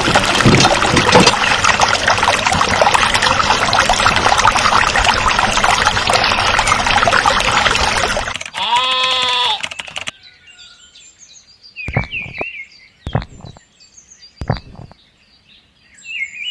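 Loud rushing of water for about eight seconds, then a short animal call that bends in pitch, then bird chirps with a few sharp knocks.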